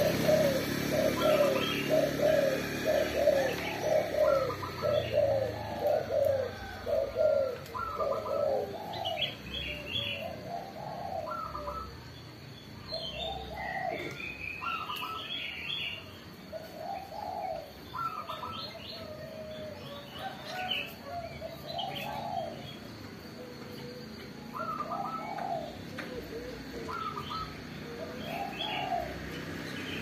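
Caged pet doves cooing over and over: a quick run of coos in the first few seconds, then single coos every second or two, with higher chirping calls mixed in. The birds kept here are spotted doves (tekukur) and zebra doves (perkutut).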